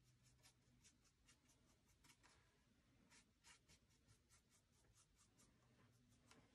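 Faint, irregular scratchy strokes of a small paintbrush dabbing paint onto a canvas, a few strokes a second.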